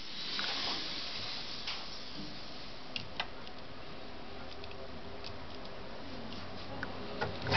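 Small clicks and taps of wire leads and battery clips being handled and connected to a small sealed battery, a few sharp clicks standing out about three seconds in, over a steady background hiss.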